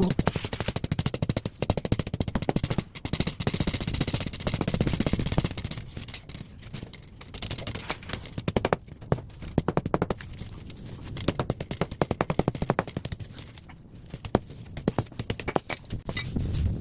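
Rapid, dense metallic clicking and crackling in clusters with short lulls, from an air-conditioner radiator being pulled apart by hand to strip its thin aluminium fins from the copper tubing.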